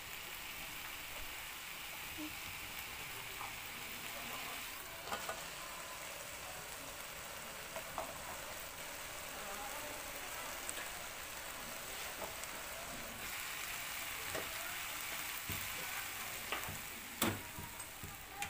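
Pieces of fish and herbs sizzling steadily as they stir-fry in a frying pan, the pan covered with a metal lid for part of the time. Scattered light clicks of metal utensil and lid on the pan, with one sharper knock near the end.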